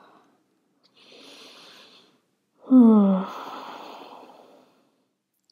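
A woman taking a slow, deliberate yoga breath: a soft inhale about a second in, then a longer audible sighing exhale. The exhale begins with a voiced tone that falls in pitch and trails off into breath over about two seconds.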